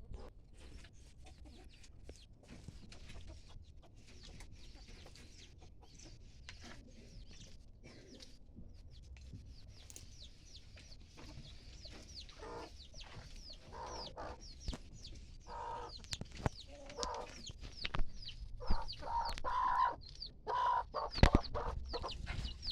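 Domestic chickens clucking in short, irregular calls that start about halfway through, with many quick, high falling chirps among them.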